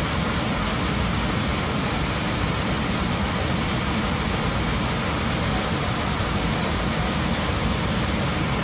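A loud, steady rushing roar inside an Airbus A321 cabin: air streaming past the hole blown in the fuselage, mixed with engine noise.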